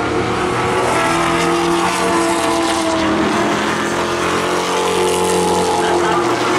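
Several stock-car racing engines running together on a short oval, a steady blended sound whose pitch rises and falls slowly as the cars circulate.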